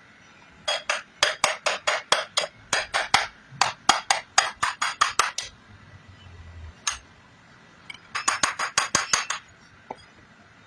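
Hammer tapping on metal, as in exhaust fan repair work: a run of about twenty sharp strikes at roughly four a second, a single strike, then a quicker burst of about eight near the end.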